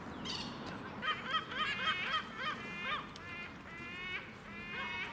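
Waterbirds on a lake calling: a quick run of short, harsh, honking calls starting about a second in, followed by slower single calls.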